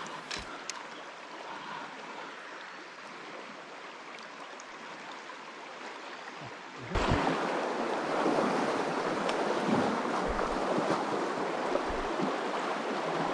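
River current running, a steady rush of water that gets clearly louder about seven seconds in.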